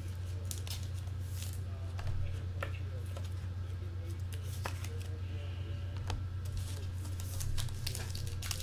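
Football trading cards and a card pack being handled: scattered clicks, slides and rustles over a steady low hum.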